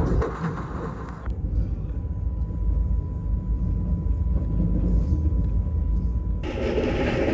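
Passenger train running, a heavy low rumble with a faint steady high tone over it. About six seconds in, it changes abruptly to brighter, fuller rail noise.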